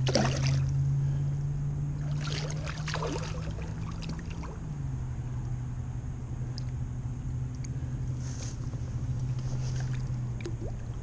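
Water splashing in short bursts, at the start, two to three seconds in and again later, as a hooked common carp thrashes in the shallows. Under it runs a steady low hum.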